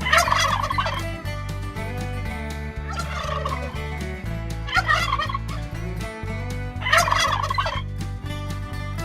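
Domestic turkeys gobbling: four separate bursts of rapid, warbling gobble calls.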